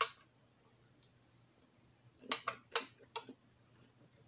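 Cutlery clinking against a plate while eating: one click at the start, then a quick run of four sharp clicks between two and three seconds in.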